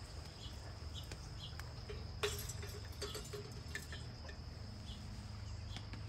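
Faint outdoor ambience: a steady high-pitched hum under scattered soft chirps, with a few clicks and knocks from the recording device being handled, the sharpest about two seconds in.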